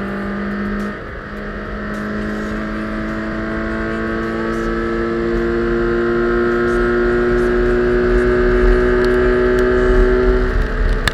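Toyota 86 / Scion FR-S 2.0-litre flat-four engine at full throttle on track. It briefly dips about a second in, then pulls with its pitch slowly climbing, and drops away near the end as the throttle comes off.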